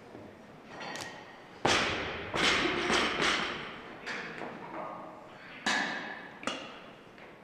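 Heavy thuds of a barbell with rubber bumper plates hitting a lifting platform. One loud thud comes about two seconds in, followed by a few weaker bounces. Two sharper knocks follow near the end.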